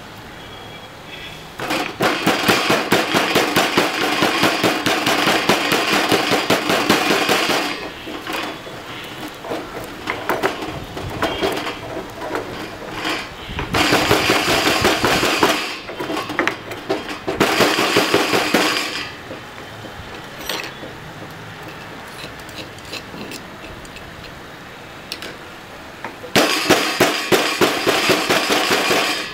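Stone pestle pounding in a heavy stone mortar: several runs of quick, hard strokes lasting a few seconds each, with sparser, softer knocks in between.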